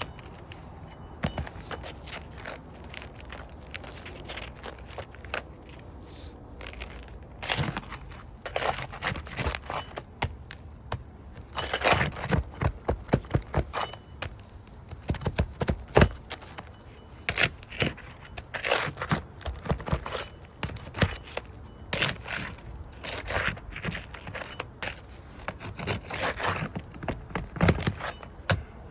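Brittle asphalt roof shingles scraping and cracking as they are pried up and their nails pulled, in irregular runs of sharp clicks and scrapes. The shingles are too brittle to repair and break as each nail comes out.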